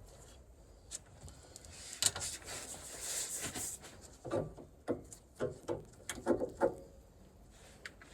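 Workshop handling noise: a brief scraping rustle, then a string of light sharp knocks and clicks, like metal tools or parts being handled and set down.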